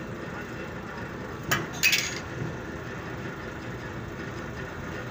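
Two sharp metal knocks close together about a second and a half in, over a steady low machine hum.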